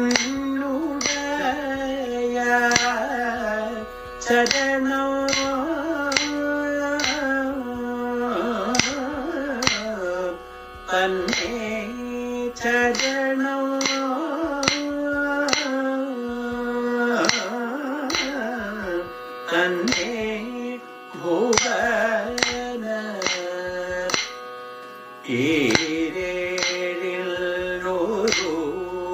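Kathakali padam singing: a voice holding long, wavering and gliding notes over a steady beat of percussion strikes, about two a second.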